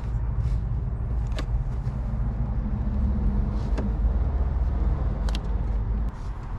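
A vehicle engine idling with a steady low hum that drops in level near the end, with a few light clicks from hands working on wiring parts.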